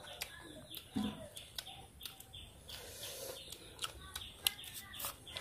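Quiet eating sounds: crunchy green mango being chewed and spoons scraping and clicking on the mango, a few sharp clicks here and there. Faint bird chirps in the background.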